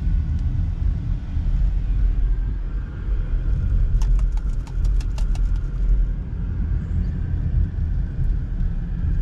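Car cabin rumble and road noise from a car driving slowly on a city street. A short run of quick clicks comes about four seconds in.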